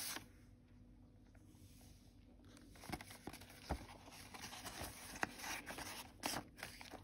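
Faint paper rustling and sliding as a card tag is pulled out of a paper pocket in a handmade journal and pushed back in, with a few light taps, starting about three seconds in.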